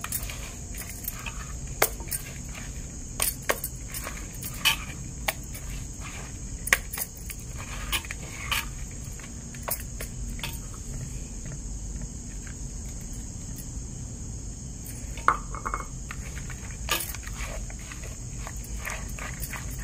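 A hand working thick batter in a clay pot, the stacked bangles on the wrist knocking against the pot and each other in irregular clicks and clinks. Behind it runs a steady high chirring hiss.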